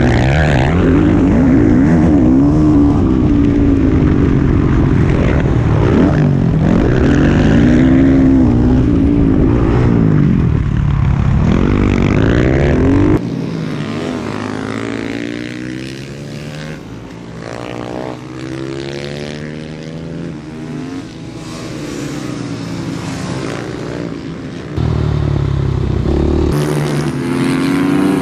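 Supermoto racing motorcycle engines revving up and down as the bikes accelerate and brake through the track. The sound is loud and close for roughly the first half, drops suddenly to a quieter, more distant level, and jumps back up near the end.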